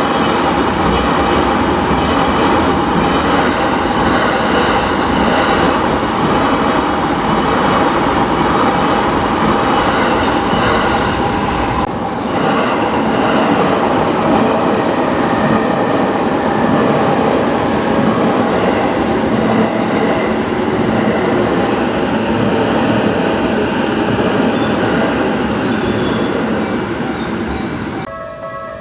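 Electric trains passing close by, a loud continuous rumble and rattle of wheels on rail. It is first a former Narita Express, then, after a cut about twelve seconds in, a Saikyo Line train of Sotetsu stock.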